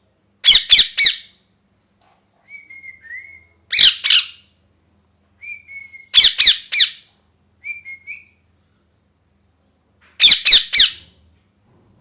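Pet ringneck parrot (rose-ringed parakeet) screeching in four loud bursts of two or three harsh calls each, with soft short whistled notes in between.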